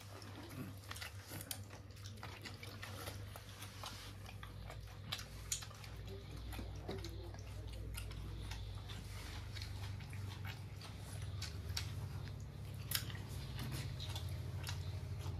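People eating chicken curry with roti and rice: chewing, with scattered small clicks and crackles of the meal being handled, over a steady low hum.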